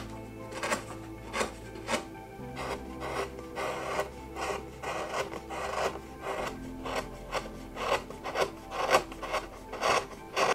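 Hand carving gouge paring white pine: a run of short scraping cuts, about one or two a second, with a stretch of continuous shaving a few seconds in. Soft background music plays underneath.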